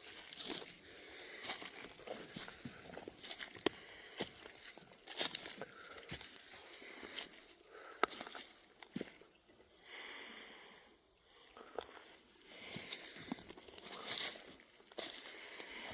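Footsteps crunching and rustling through dry brush and leaves, with scattered small snaps and crackles, over a steady high-pitched hiss.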